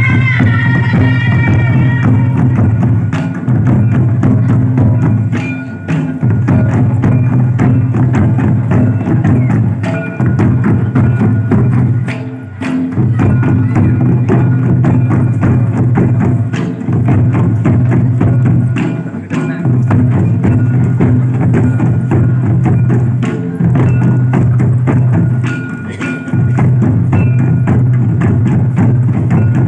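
Santal festival drumming: a tamak kettle drum beaten with sticks and tumdak barrel drums playing a fast, repeating dance rhythm, with a low booming that breaks off briefly every few seconds as the pattern cycles.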